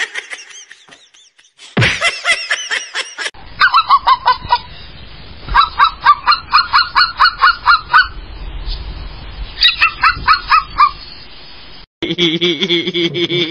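An animal's honk-like calls, short and rapidly repeated at several a second, in runs of one to two seconds with short breaks between.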